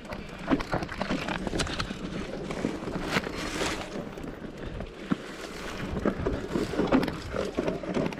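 Electric mountain bike ridden over a rough trail: tyres crunching over dirt and rocks, with irregular clicks and knocks from the frame and chain rattling, and wind buffeting the microphone.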